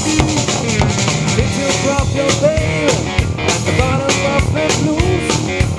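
Live rock band playing an instrumental passage: an electric guitar line that bends and glides in pitch over electric bass and a drum kit keeping a steady beat.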